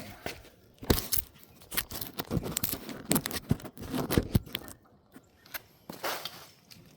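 Irregular metal clinks and clatter of tools and parts being handled, with a sharp knock about a second in.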